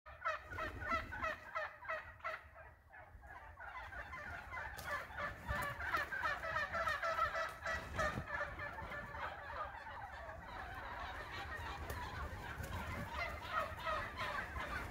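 A flock of wild turkeys calling together at the roost, many short calls overlapping in a rapid, continuous chatter, with a brief lull about two to three seconds in.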